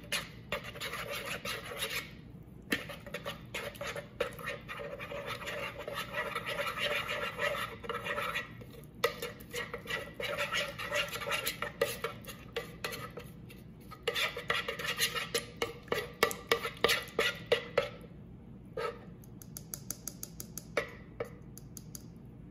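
Metal spoon stirring a cornstarch-and-water mix in a mixing bowl, scraping against the bowl in bursts of rapid strokes with a few short pauses, as the mix thickens into oobleck.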